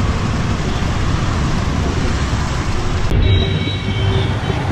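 Steady rumble of street traffic.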